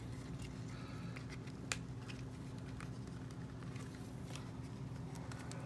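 Faint clicks and light rustling of hands handling a plastic fashion doll on its plastic stand, with one sharper click about two seconds in, over a steady low hum.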